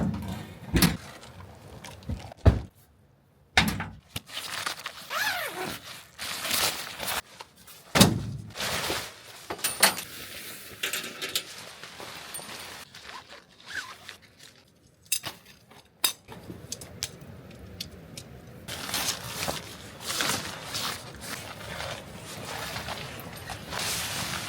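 Irregular thunks, knocks and clinks of camping gear being handled while a truck bed tent is set up.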